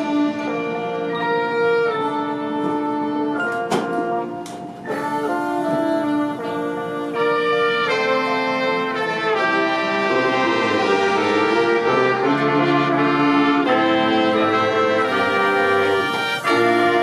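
High school marching band playing, its brass section holding sustained chords. A few sharp percussion hits come about four seconds in, after which the band plays fuller and louder.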